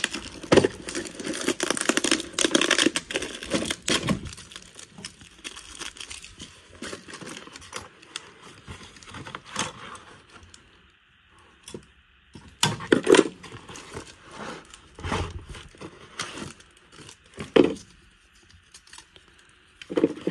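Old paper wrapping being torn and crumpled off a sealed package, dense for the first few seconds and then lighter rustling. Later come several short, sharp metal knocks and clinks as the metal-band oil filter wrenches inside are handled, the loudest a little past halfway and again near the end.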